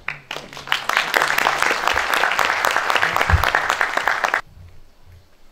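Audience applauding: dense clapping that starts just after the beginning and cuts off suddenly about four and a half seconds in.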